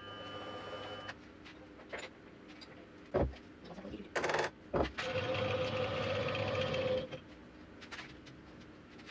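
Benchtop milling machine's motor whirring steadily, then stopping about a second in. A couple of sharp knocks and a short rattling burst follow as work is done on the machine table, then a steady noise lasting about two seconds.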